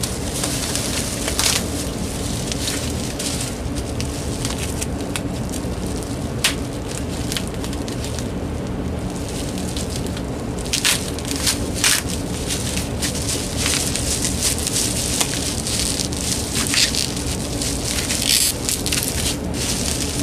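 Bubble wrap crinkling and crackling as hands unwrap cordless phone handsets, the crackles coming thicker about halfway through, over a steady low hum.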